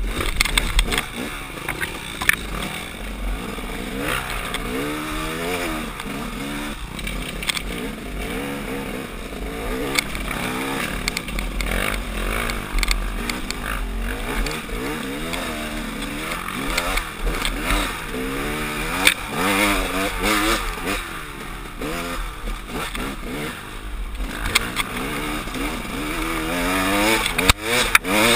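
A KTM dirt bike's engine revving up and down again and again while it is ridden over a rough trail, with scattered knocks from bumps.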